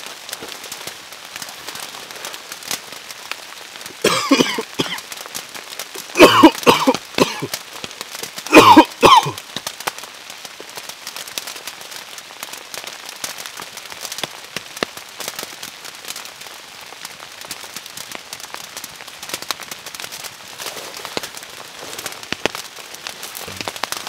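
Steady rain with a small campfire crackling. A man coughs in three short bouts, about four, six and eight and a half seconds in.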